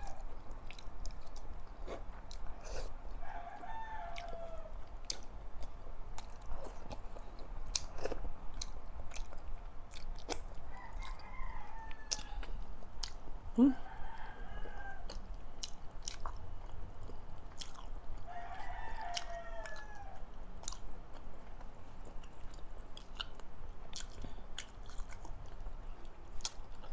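Close-miked chewing with wet mouth clicks throughout, while a rooster crows several times in the background, each crow drawn out and falling at the end.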